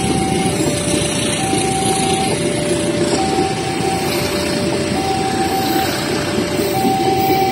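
Railway level-crossing warning alarm: a two-tone electronic signal alternating high and low, each tone just under a second, over a steady rumble of engines. It warns that a train is approaching.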